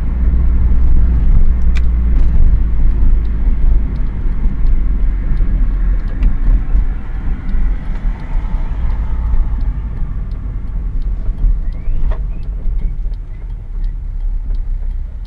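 Acura 1.6EL manual-transmission car running with a steady low rumble, and a faint whine that rises and falls about halfway through as the level eases off. The owner hears a weird transmission noise when decelerating or in reverse and suspects the transmission was damaged at the body shop.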